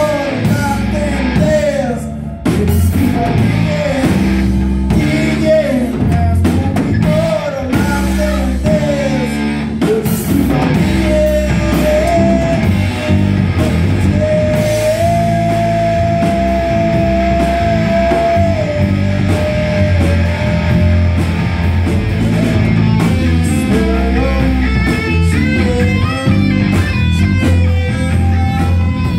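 Live rock band playing: electric and acoustic guitars, bass guitar and drum kit, loud and continuous. A lead line of bending notes runs over the band, with one note held for several seconds midway.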